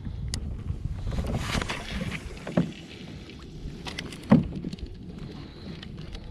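Wind rumbling on the microphone aboard a fishing kayak, with a hissing smear about a second in and two sharp knocks, the second and loudest about four seconds in.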